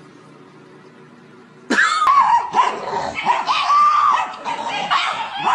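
A dog vocalising in a long run of whining, yowling calls whose pitch bends and wavers, as if talking back, starting suddenly about two seconds in after a faint low hum.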